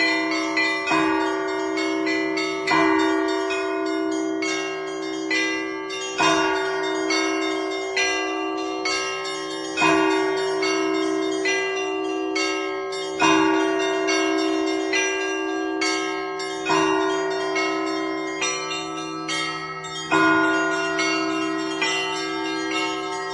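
Russian Orthodox church bells rung in a continuous peal. A heavy bell is struck about every three and a half seconds while smaller bells ring quick patterns between its strokes, over a steady lingering hum.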